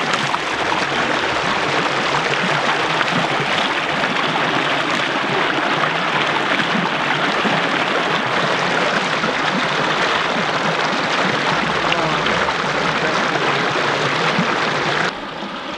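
Stream water rushing over rocks, a steady, loud rush that drops sharply in level near the end.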